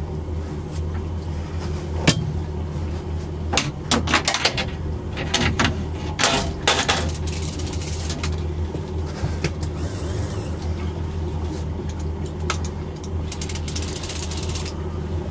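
Boat outboard motor running steadily at low speed, with scattered clicks and knocks from handling the rod and reel while a fish is on the line.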